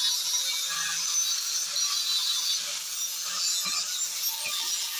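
Angle grinder scouring rust off a bench vise casting: a steady high grinding hiss with a scratchy, shifting edge as the spinning disc is worked over the metal.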